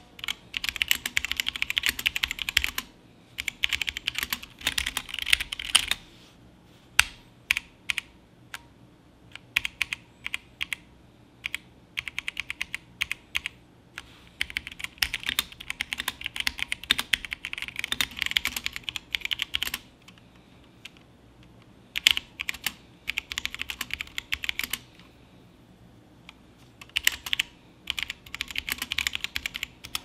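Typing on a custom mechanical keyboard fitted with pudding-style keycaps, first a cheap Havit clone set and then a Loop set. The keystrokes come in runs of rapid clacks broken by short pauses.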